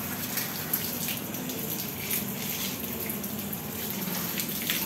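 Water from a garden hose spraying and splashing steadily against the walls and floor of a dog kennel box.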